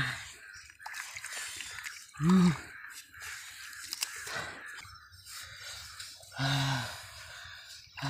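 Bare hands scooping and squelching through wet sand and muddy water in a hole, with wet crunching, small clicks and drips. A brief voice sound is heard twice, louder than the digging.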